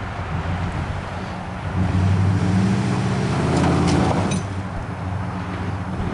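Pickup truck engine working under load as the truck climbs a dirt mound, growing louder for about two seconds in the middle, then settling back to a steady run.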